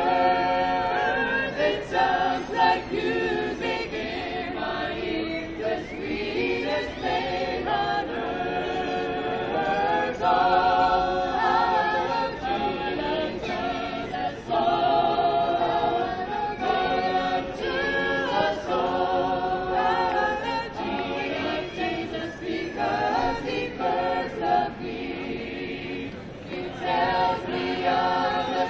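Mixed choir of men's and women's voices singing a cappella, in continuous phrases with brief breaths between them.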